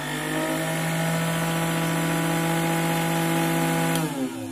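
Salvaged blender motor running at speed with a steady, high whine. About four seconds in there is a click, and the pitch falls as the motor winds down.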